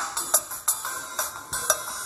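Background music with a beat of sharp percussive hits, several to the second, over sustained tones.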